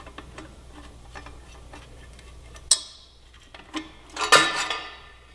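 Socket ratchet clicking in short runs as the exhaust header flange nuts are spun off, with one sharper click about halfway through. Near the end comes a louder scraping clatter.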